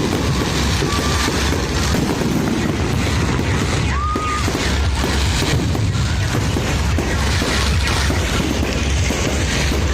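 New Year fireworks going off without a break: overlapping booms and crackling bursts over a deep rumble, with a short whistle about four seconds in.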